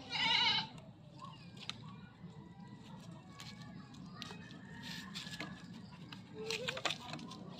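A brief wavering animal call right at the start. Then dry twigs and leaves rustle and crackle as they are handled by hand, with a cluster of sharper cracks near the end.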